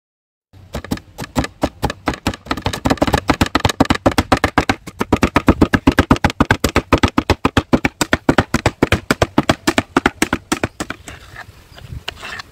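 A rapid, even run of sharp knocks, several a second, starting about half a second in, loudest in the middle and tailing off near the end.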